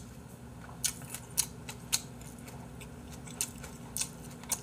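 Scattered faint clicks, about seven in four seconds and irregularly spaced, over a steady low room hum.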